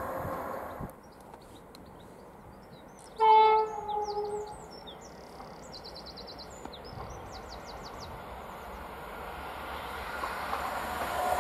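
Class 390 Pendolino electric train sounding its two-tone horn about three seconds in, a short higher note followed by a longer lower one, as a warning approaching the foot crossing. Birds chirp after it, and the rumble of the approaching train grows toward the end.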